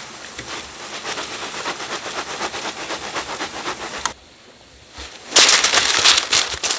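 Hot frying oil sizzling and crackling around a batch of round donut balls as a wire skimmer basket lifts them out of the pan. After a brief quiet gap, a louder rustling crackle comes as the batch is tipped from the wire basket onto a paper-lined counter.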